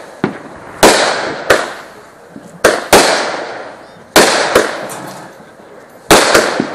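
Aerial firework shells bursting in quick succession: about eight sharp bangs, some in close pairs, each trailing off in a rolling echo.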